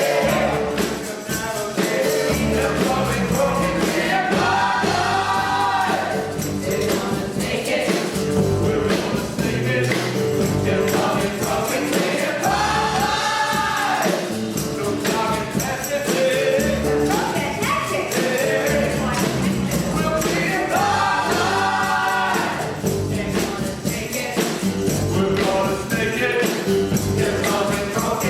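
Several voices singing a pop song parody over a backing track with a steady beat.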